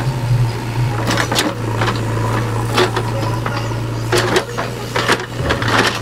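JCB 3DX backhoe loader's diesel engine running steadily under load, with a series of irregular sharp knocks and scrapes as the backhoe bucket works against large rocks.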